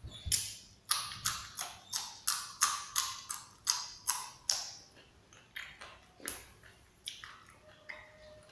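Raw yardlong bean pods being bitten and chewed: a quick run of crisp crunches, about three a second, for the first four or five seconds, then fewer and softer crunches.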